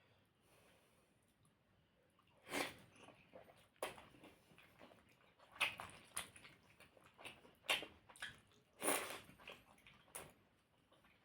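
A person chewing and eating puri with a wet potato curry (alu dum), with irregular wet mouth smacks and clicks. It starts about two seconds in after a short quiet spell.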